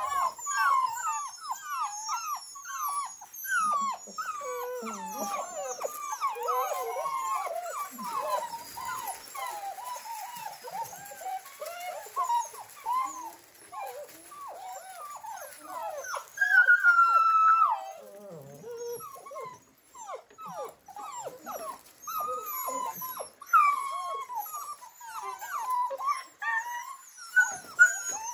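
A litter of seven-week-old Australian Labradoodle puppies whining and yipping together in many short, overlapping high-pitched cries. About sixteen seconds in, one longer, louder cry stands out.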